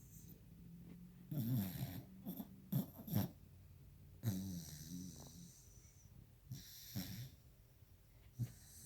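A sleeping dog snoring loudly and irregularly: two longer snores of about a second each, with several short snorts between and after them.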